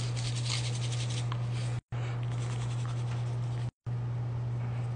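Spice shaker jars being shaken over raw chicken breasts on a foil-lined tray: a fine, rapid ticking patter of grains and shakes, over a steady low hum. The sound cuts out briefly twice.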